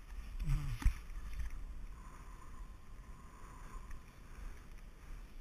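Splitboard riding down a snow slope: the board hissing over the snow, with wind rumbling on the body-worn camera's microphone and a sharp knock just under a second in.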